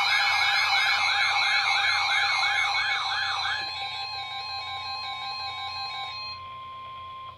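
Emergency alert tones: a fast up-and-down siren sweep layered over steady alert tones for about the first half, then only the steady tones, which drop to a single high tone that cuts off sharply at the end.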